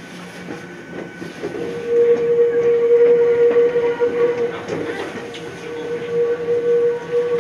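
Ohmi Railway train running into its terminus, with a steady high-pitched metallic squeal from the wheels and brakes setting in about a second and a half in and holding over the low rumble of the train.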